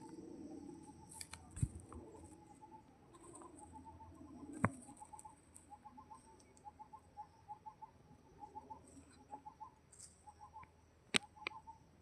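Short chirps repeated at one steady pitch, several a second, with three sharp clicks or knocks; the loudest knock comes about a second before the end.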